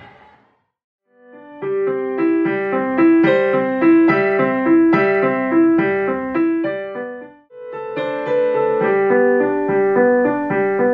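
Digital piano played from sheet music: a melody of separate notes over repeated lower notes, starting about a second and a half in, breaking off briefly a little past halfway, then picking up again.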